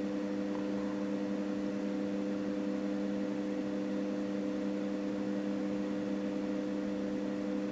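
A steady hum at a few fixed pitches, unchanging throughout.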